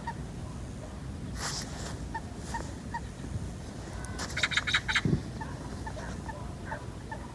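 Birds calling in the background: a short, rapid rattling call about four seconds in, over faint short chirps scattered throughout.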